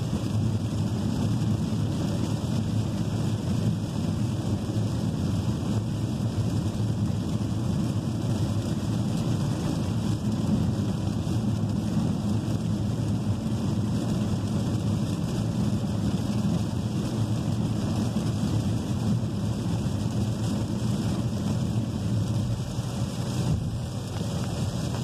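Steady rumble of a Chevrolet car driving on a rain-soaked road in heavy rain, heard from inside the cabin: tyre noise and water spray mixed with rain on the car body.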